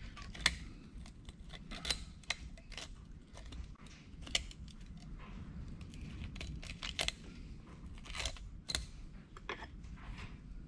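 Faint, irregular small metallic clicks and scrapes of a double-lap spiral snap ring being worked by hand into its groove on a pumping-unit wrist-pin bearing housing.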